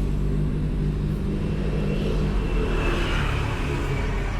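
Yamaha TMAX 560 scooter's parallel-twin engine running, a steady low drone that grows less even about a second and a half in.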